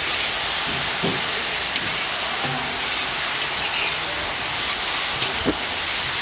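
Cauliflower, pumpkin and potato frying in oil in a large iron kadai, a steady sizzling hiss, as a steel spatula stirs them.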